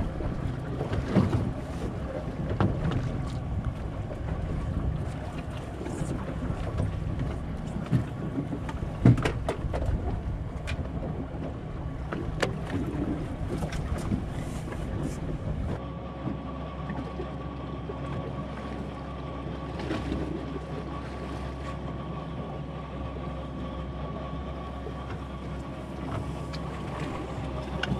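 Boat engine running steadily, with wind on the microphone. Scattered clicks and knocks come from a conventional fishing reel being cranked and handled. The engine's low hum changes pitch about halfway through.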